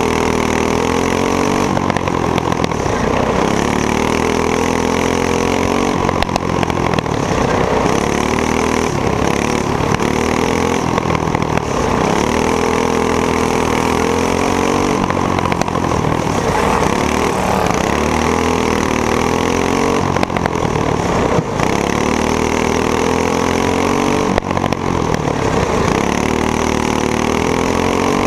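Racing go-kart's box-stock engine heard from the driver's helmet, running hard and rising in pitch along each straight, then falling back into each turn, over and over every five seconds or so.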